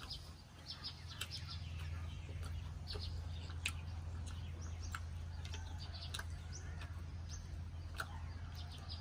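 Scattered short clicks of eating and utensils, with birds chirping in the background and a steady low hum.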